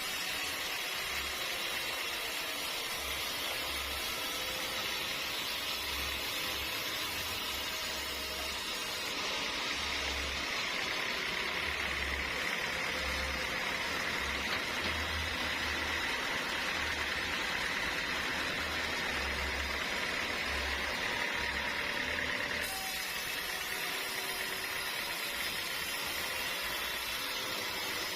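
Steady mechanical running noise with a hiss. Its character changes abruptly about nine seconds in and again near the end.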